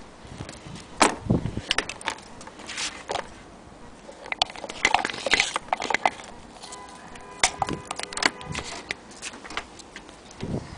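Scattered clicks, knocks and rustling as the sewing machine's foot controller and cord are handled under the cabinet.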